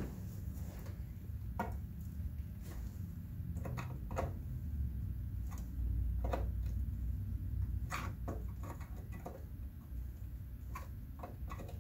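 Small clicks and scrapes of a screwdriver working the terminal screws and of wires being seated in the plastic terminal block of a grinder's motor inverter, scattered and irregular over a low background rumble.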